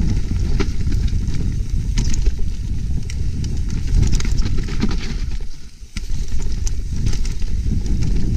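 Trek Slash full-suspension mountain bike ridden downhill over rough trail: a constant low rumble of tyres and wind with frequent sharp knocks and rattles from the chain and frame. The noise drops away briefly a little after five seconds in.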